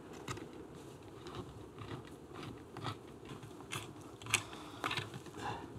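Small metal clicks and taps as clutch springs and their cups are fitted onto a Triumph Tiger Cub clutch pressure plate and pressed down with a screwdriver. The sharpest click comes about four seconds in.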